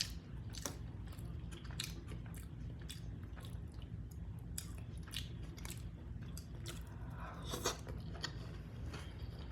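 A person chewing a tortilla with beef soup close to the microphone: many small wet mouth clicks and smacks, busiest a little before the end. A steady low hum runs underneath.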